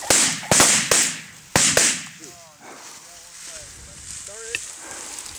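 About five shotgun shots fired in quick succession within two seconds at a flushed rooster pheasant, each a sharp crack with a short echo.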